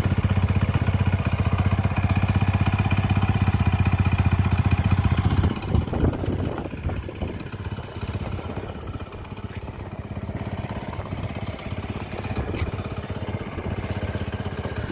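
Hero Passion Plus single-cylinder four-stroke motorcycle engine idling steadily after a rebuild, the engine having been worn out by being run for a long time after it needed a rebore. A few knocks come about six seconds in, and the engine sounds quieter after that.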